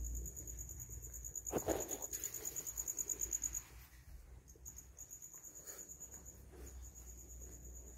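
An insect chirping in a fast, high, pulsing trill that breaks off about three and a half seconds in and starts again, more broken, a second later. A soft thump comes about one and a half seconds in.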